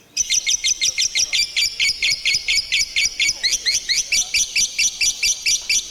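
Lovebird's 'ngekek' song: a long unbroken run of rapid, shrill chirps, about seven a second, starting abruptly just after the start.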